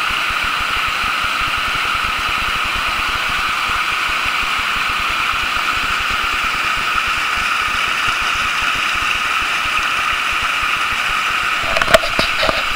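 Steady rush of a river cascading over boulders. A few sharp knocks come near the end.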